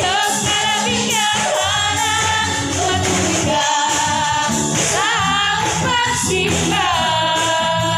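Live band music: a singer over drums and guitar, with a steady beat, loud and continuous.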